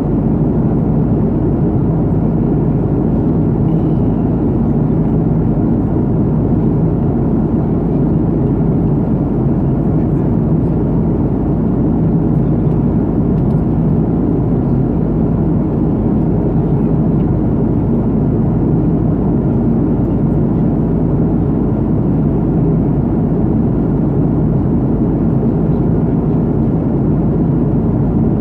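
Steady jet engine and airflow noise heard inside the cabin of an Airbus A330-200 powered by GE CF6-80E1A3 turbofans: a constant low rumble with a faint hum, unchanging throughout.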